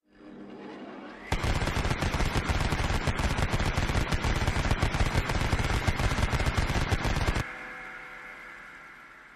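Sound effect of a rotary Vulcan-style cannon: a rising whine as it spins up for about a second, then a very fast unbroken burst of fire lasting about six seconds, which cuts off into a fading whine.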